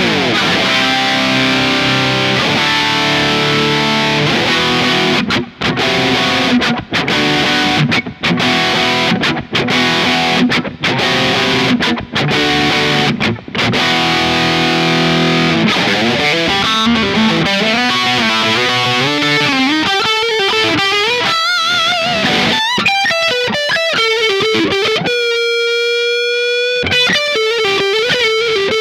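FGN J-Standard Iliad JIL2EW1G electric guitar played with distortion. Chords are cut off short several times in a row, then from about halfway it moves to a single-note lead line with wide vibrato, holds one long note near the end, and closes with a falling run.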